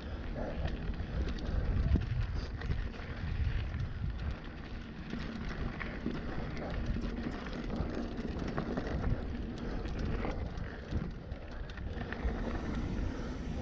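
Trek Remedy full-suspension mountain bike ridden over rough trail: the tyres rolling on dirt and rock while the bike rattles with many small clicks and knocks, and wind buffets the microphone.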